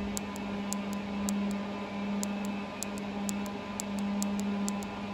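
Steady electrical hum from the powered equipment, with faint, irregular sharp clicks from the keypad's tactile push-buttons being pressed to step a parameter value.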